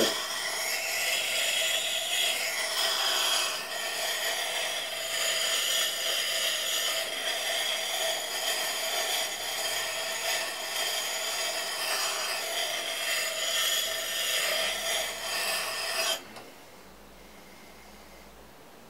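Broad axe blade pressed hard against a treadle-driven water grindstone: steady grinding of steel on wet stone that cuts off suddenly about sixteen seconds in.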